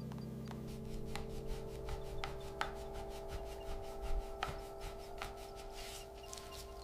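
Steady rubbing by hand on a part during a STEN gun restoration, with scattered light clicks and taps.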